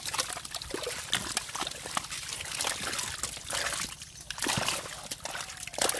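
Thick wet mud squelching and sloshing as hands and mesh scoops dig through a shallow mud pond packed with wriggling stinging catfish, with irregular wet splatters and drips.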